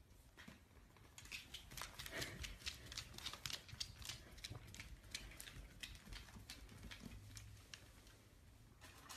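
Faint, irregular clicks and taps from a corgi puppy on a hardwood floor by its bowl of kibble, several a second, starting about a second in and dying away near the end.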